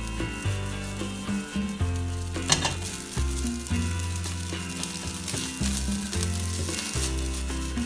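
Fried rice sizzling in a hot wok as it is tossed and stirred with a spatula, with scraping clicks and one louder clack about two and a half seconds in, over background music.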